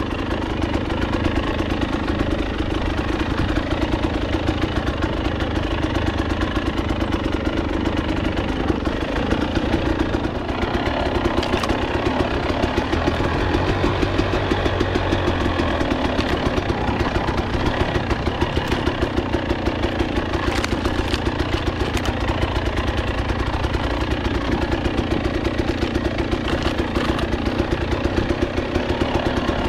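KTM 300 XC two-stroke single-cylinder dirt bike engine running at low, fairly steady revs while riding a trail, with a few short sharp knocks near the middle.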